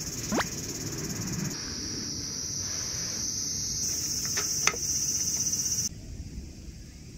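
A steady, high-pitched chorus of insects, its level jumping abruptly a few times. A short falling whistle just after the start and a couple of sharp clicks about four and a half seconds in stand out above it.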